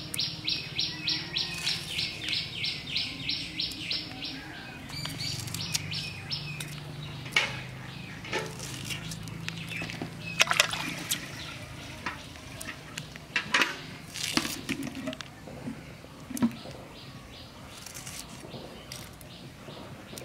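Green chillies being sliced on a boti, the fixed upright blade, with scattered sharp crisp snaps as each piece is cut. A bird chirps rapidly, about four or five times a second, through the first four seconds, and a low hum runs for a few seconds in the middle.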